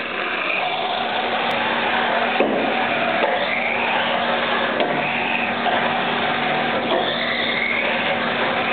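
Small electric motor of a 1:24-scale RC drift car whining, its pitch rising again and again as it speeds up, over a steady hiss, with a few sharp ticks.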